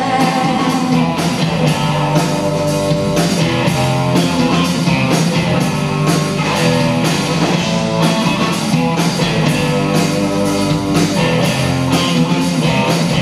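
Rock band playing an instrumental break without vocals: electric guitar, electric bass and drum kit, with a steady drum beat.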